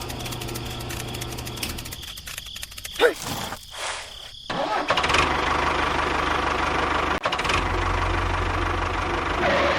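A small motor ticking rapidly. After a short lull it starts running steadily and louder about four and a half seconds in.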